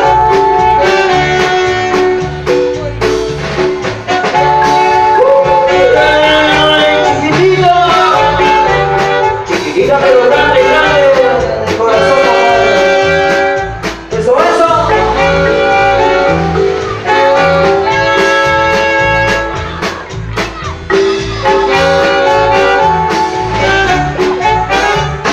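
A live band playing loud music with horns over a steady pulsing bass line, with a few sliding notes about ten and fourteen seconds in.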